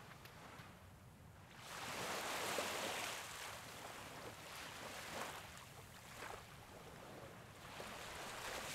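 Sea waves breaking and washing up a sandy beach, swelling loudest about two seconds in and building again near the end.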